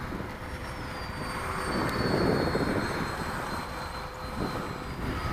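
Electric ducted fan of a Freewing Stinger 64mm RC jet whining in flight, its high pitch sliding down over the first few seconds and then holding steady, with wind rumble on the microphone underneath.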